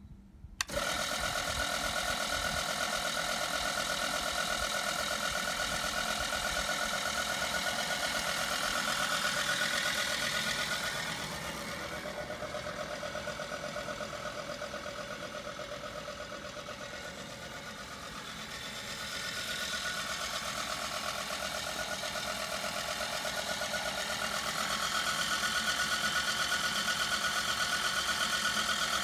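Home-built remote-controlled lawn mower running, a steady mechanical hum with a whine over it. It begins abruptly about half a second in, eases off in the middle and builds again toward the end.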